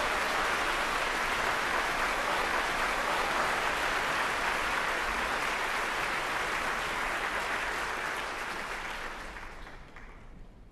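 Audience applauding a ballet variation, a dense steady clapping that dies away near the end.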